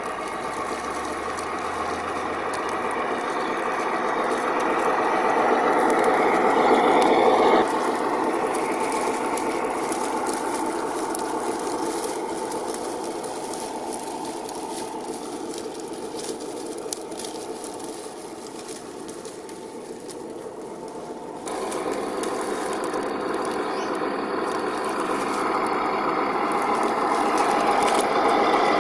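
HG P408 1/10-scale RC Humvee crawler driving over dirt and dry leaf litter: the whine of its 550 brushed electric motor and gear train, with crackling of leaves and twigs under the tyres. The whine grows louder as the truck comes closer, and it breaks off sharply about a quarter of the way in and again about three quarters of the way in.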